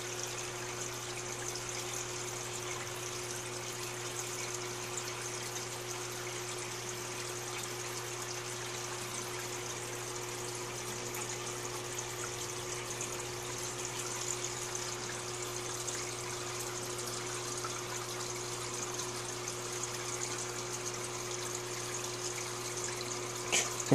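Aquarium water circulating: a steady trickle over a low, even hum from the tank's filter running. A brief louder sound cuts in right at the very end.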